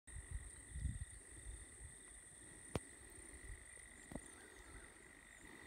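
Faint steady chirring of insects in dry grass, with a few soft low thuds in the first second and two sharp clicks, one just under three seconds in and one about four seconds in.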